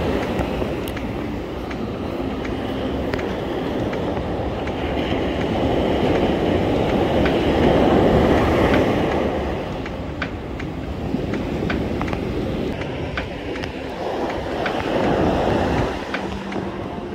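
Ocean surf breaking and washing up the beach, with wind buffeting the microphone; the wash swells louder about halfway through and again near the end. Scattered light clicks sound over it.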